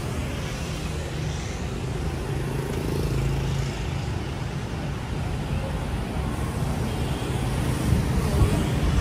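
City street traffic: a steady rumble of cars and motor scooters running along the road.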